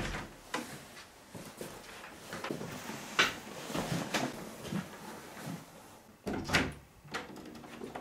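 Wooden furniture being handled: knocks and scrapes of a desk and chair, with a sharp knock about three seconds in and a longer, louder one later on.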